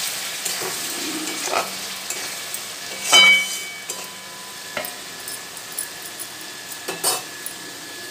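Masala sizzling as it fries in an aluminium kadai, with a metal spatula stirring and scraping the pan several times. About three seconds in the spatula strikes the pan with a loud ringing clink.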